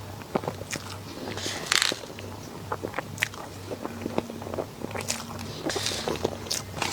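Close-miked eating of a dessert: bites and chewing, with many small wet clicks and two louder, longer bites, one near two seconds in and one near six seconds in.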